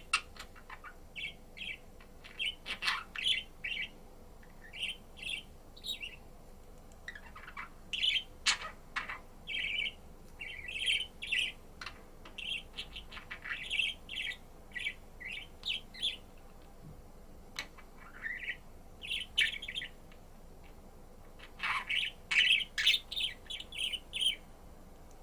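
Budgerigar chirping and warbling in quick runs of short, high chirps, with brief pauses between the runs and a few sharp clicks mixed in.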